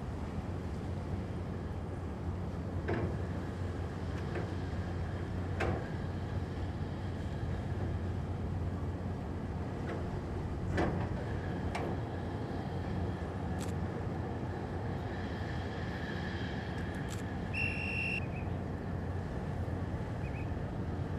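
Ships' engines running with a steady low drone as a tug works at a destroyer's bow, with a few sharp knocks. Near the end comes one short, high whistle.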